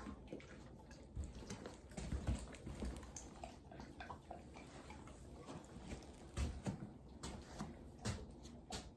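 Footsteps of a person in rubber boots thudding on the floor at irregular intervals, a few of them heavier, mixed with scattered light clicks and taps.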